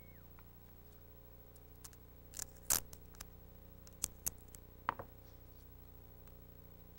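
Paper hoops and tape being handled: a few short, crisp snaps and crackles, bunched between about two and five seconds in, over a faint steady hum.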